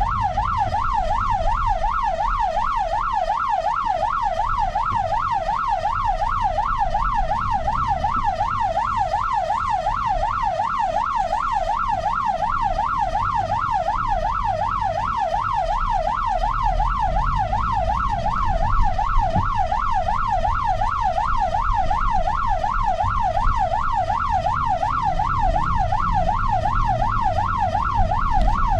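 Ambulance siren in rapid yelp mode: a steady, fast rise-and-fall wail of about three sweeps a second, with a low road and engine rumble underneath.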